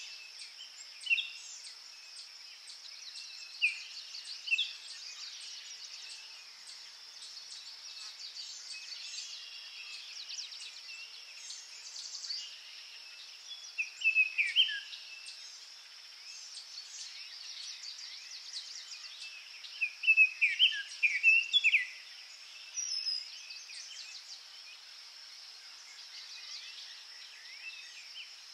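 Outdoor nature ambience: a steady high insect drone, with birds chirping in short scattered phrases, the loudest bursts a little before the middle and about two-thirds of the way through.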